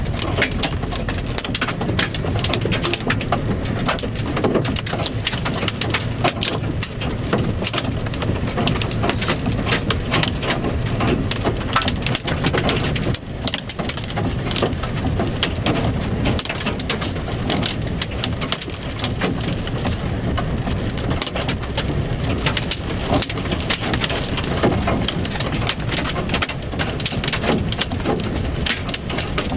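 Hail pelting a vehicle's body and windshield in a dense, continuous rattle of hits.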